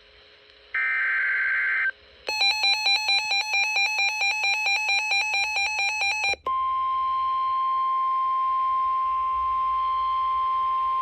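Emergency Alert System tones: a short screeching data burst about a second in, then about four seconds of rapid electronic beeping at about four pulses a second, then a steady single-pitched attention tone that holds to the end.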